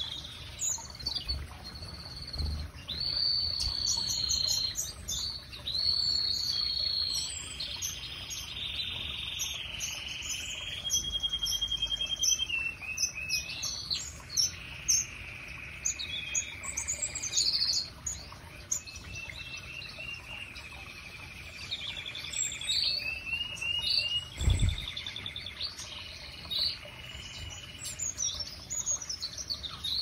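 Aviary finches singing: a continuous warbling song of long rolling trills and held whistled notes, with scattered chirps. A single low thump sounds about three-quarters of the way through.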